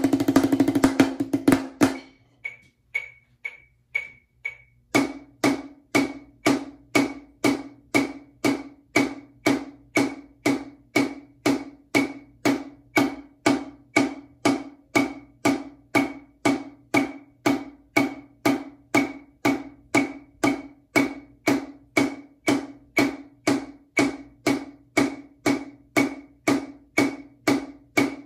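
Drumsticks playing steady, even full strokes on a snare drum covered with a practice pad, about two strokes a second along with a metronome, at the 60 BPM play-along tempo. A quick flurry of strokes comes first, then a few slow clicks, and the steady run starts about five seconds in.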